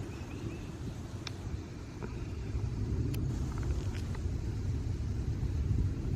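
Low, unsteady rumble with a few faint ticks.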